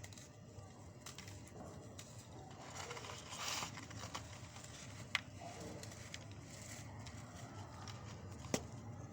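Hard pieces of pure cement being crushed, crunching and crumbling faintly, with a louder gritty crunch about three and a half seconds in and two sharp single cracks later on.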